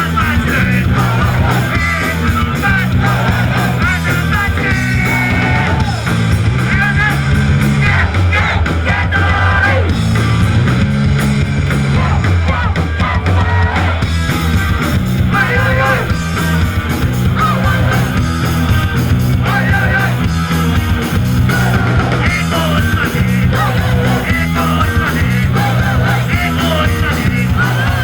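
Live punk rock band playing loud, with shouted singing over the full band.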